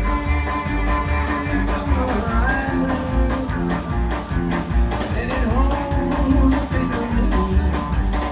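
Psychobilly band music: electric guitar over a pulsing bass line and a steady drum beat.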